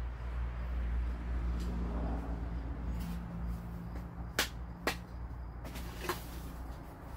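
Short, sharp clicks and knocks as leaf-spring parts are handled and fitted, three of them in the second half, over a steady low hum.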